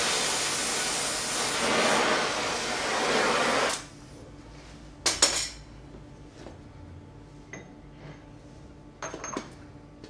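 A loud, steady rushing hiss of a jet of air or gas, which cuts off sharply about four seconds in. It is followed by a few light metallic clinks with a brief ring, about five seconds in and again near the end.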